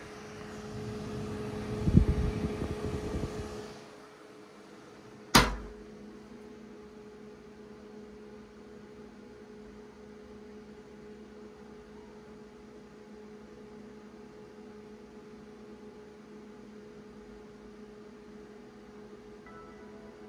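Computer case fan running with a steady whirring hum, loud enough to be the owner's complaint. It is louder and rushing, with low rumbling thumps, for the first four seconds, then settles to a quieter steady hum; a single sharp click comes about five seconds in.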